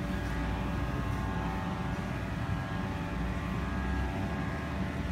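A steady mechanical drone: a constant low rumble under several steady tones, with no clear starts or stops.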